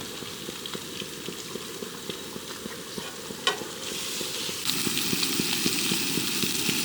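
Bacon sizzling and crackling in a frying pan on a gas camping stove, growing louder about five seconds in, with a single click partway through.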